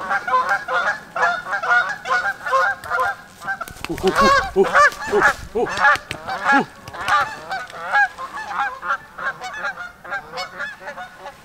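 Several Canada geese honking in a rapid run of short, overlapping calls, loudest about four to seven seconds in: the alarm honking of territorial nesting geese with a person coming at them.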